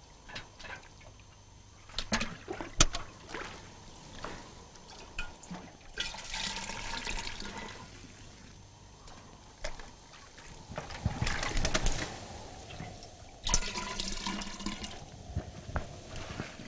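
Water gurgling and sloshing in several bouts as a clay pot is dipped and filled at a shallow pool, with a sharp knock about three seconds in.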